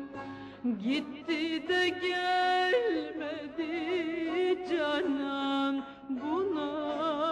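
Background music in a Middle Eastern style: an ornamented melody with wavering, sliding notes over a held low note.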